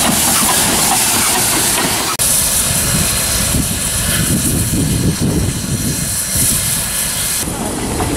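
NZR WW class steam tank locomotive No. 644 hissing steam as it moves slowly through the station, over a low rumble from the engine and track.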